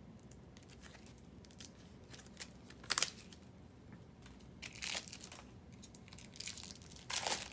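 Large cardboard game cards being handled and dealt out onto a wooden table: a few short papery rustles and snaps, the sharpest about three seconds in and just before the end.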